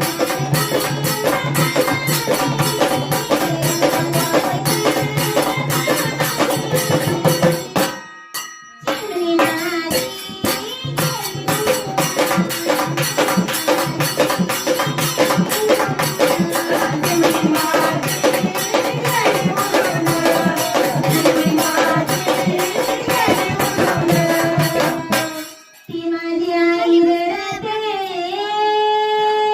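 Music: a folk song with singing over fast, steady drum and rattle percussion. It breaks off briefly about eight seconds in, and near the end the percussion drops away, leaving long held, wavering notes.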